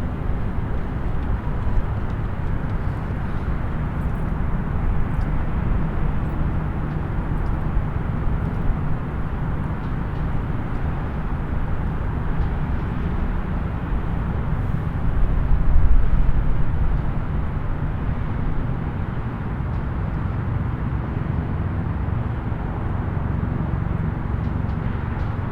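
Distant highway traffic: a steady low rumble of passing vehicles, swelling briefly about two-thirds of the way through as a louder vehicle goes by.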